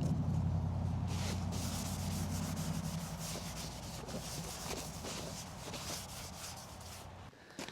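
Gasoline pouring from a five-gallon gas can into a fuel tank, a steady flow with irregular small glugs, growing fainter and stopping shortly before the end.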